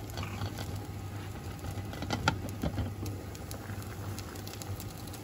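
Water boiling hard in a stainless steel pot with saba bananas in it, a steady bubbling with many small pops, over a steady low hum. One sharper click about two seconds in.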